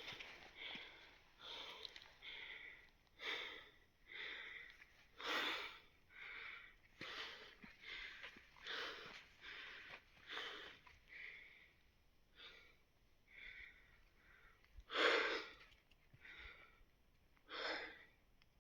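A man breathing hard from exertion under a heavy pack of over 30 kg: rapid, heavy panting, about one breath a second, with one louder breath near the end.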